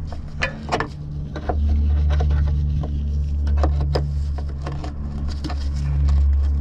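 Line wrench being worked back and forth on a rusted brake-line nut, giving irregular metallic clicks and taps, some with a short ring. A steady low hum runs underneath.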